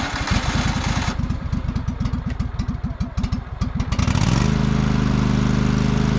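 Riding lawn mower engine cranking in quick, even pulses, then catching about four seconds in and settling into a steady run.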